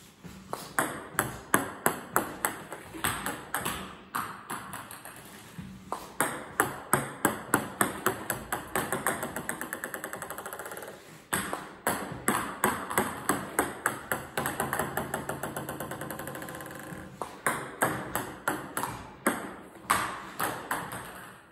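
Table tennis ball struck on backspin serves and bouncing on the table, about four serves in a row. Each run of bounces quickens into a rapid patter as the ball settles.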